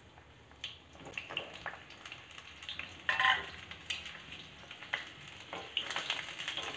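Pointed gourd pieces dropped into hot oil in a kadhai, crackling and spitting in scattered bursts as they land, with the loudest burst about three seconds in. Near the end the sizzle of the frying thickens into a steady crackle as a wooden spatula stirs them.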